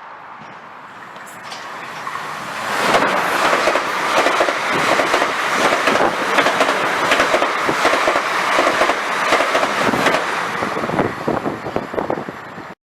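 Train passing close at speed: its sound swells about two seconds in, then holds as a loud steady rush of wheels on rail with a rapid clatter of clicks over the rail joints, ending in a sudden cut near the end.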